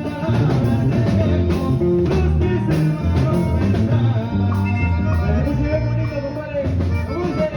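A band playing a song: a singer over a steady bass line and drums.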